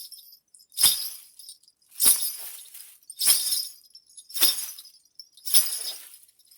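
Broken glass crunched and clinked in a steady rhythm: five sharp, jingling crashes about one every 1.2 seconds, each with a short ringing tail. This is a foley take performed in glass.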